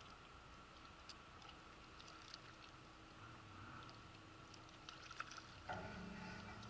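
Near silence with a few faint scattered ticks; faint background music comes in near the end.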